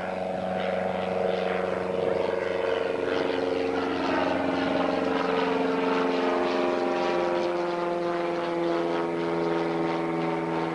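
Single-engine high-wing light aircraft flying low overhead, its engine and propeller drone steady and loud, sliding slowly down in pitch as it passes.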